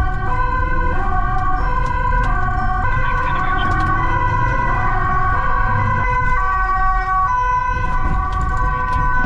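Dutch police car's two-tone siren on an emergency run, a high and a low tone alternating about every half second, heard from inside the car with engine and road rumble underneath.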